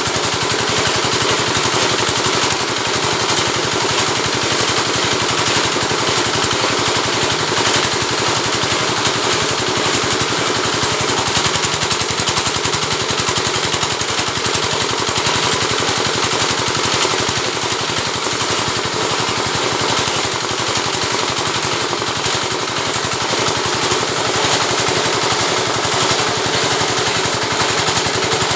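Oil-palm lidi stripping machine running continuously, a loud, fast, even rattle from its motor and scraping mechanism with no pauses.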